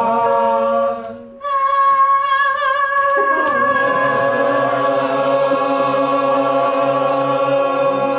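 A room of people singing together on an open "ah", each holding a long note so that a sustained chord sounds. The chord breaks off about a second in and a new, higher chord is taken up and held, with a few voices wavering before they settle.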